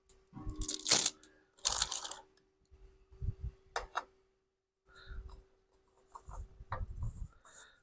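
Irregular clicks, scrapes and rustles of hands working on a small engine's oil filter mount, with no steady running machine.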